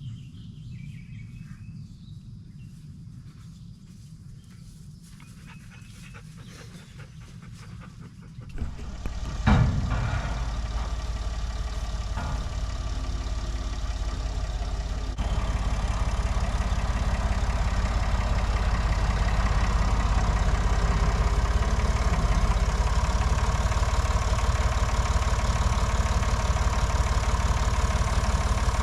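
A tractor engine starts up about nine seconds in, with a sharp burst as it catches, then runs steadily, getting louder about fifteen seconds in. Before it starts there is only a faint low hum with a few light clicks.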